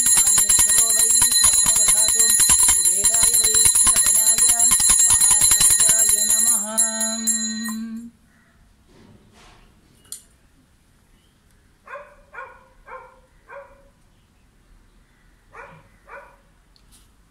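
Small brass puja hand bell rung rapidly and continuously, ringing with bright sustained high tones; the strokes slow and stop about eight seconds in, leaving near quiet with a few short faint calls.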